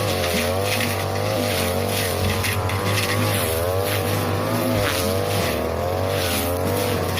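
42cc two-stroke brush cutter running at high revs, its pitch wavering up and down as the blade takes the load of thick, flattened grass.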